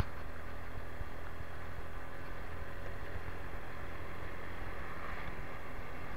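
Motorcycle riding along a road: a steady low rumble of engine and road noise, with one sharp click right at the start.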